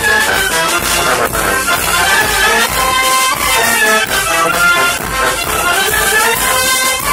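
A live wind band, saxophone among the instruments, playing a traditional dance tune with several melodic lines over a steady beat.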